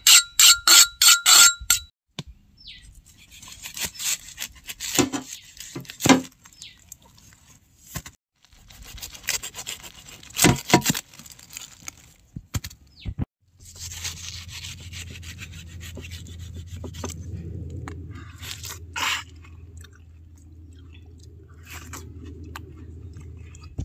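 A steel knife is scraped quickly back and forth along a meat cleaver's blade, about four ringing metallic strokes a second, for the first two seconds. Then the cleaver and knife saw and scrape into thick watermelon rind, with a few sharper knocks. From about halfway through, a steady low hum sounds underneath.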